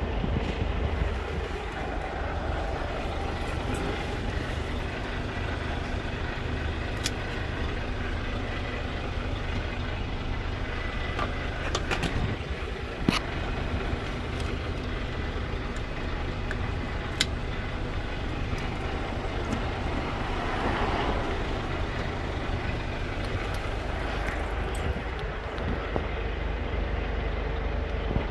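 Steady low rumble with a handful of sharp clicks and knocks in the middle stretch, from hands handling a plug and its cable.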